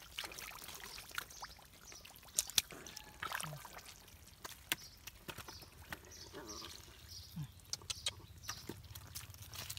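Bare hands squelching and splashing through mud and shallow water while groping for and grabbing a fish, with many small sharp wet clicks and trickling water.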